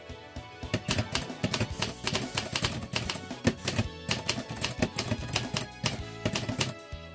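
Marathon 912DLX typewriter keys striking in quick, uneven runs of clacks, over pop-ballad music with a steady beat.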